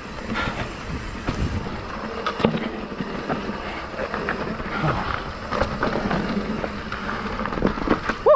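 Mountain bike riding down a rough double-black trail: tyres running over dirt and rocks, with irregular knocks and rattles from the bike. A short, loud, rising squeak comes just before the end.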